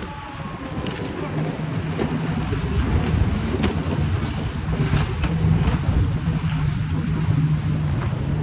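Jet ski engines running at speed as the craft pass close by: a steady low engine hum over the rush of spray and wind, growing louder over the first few seconds.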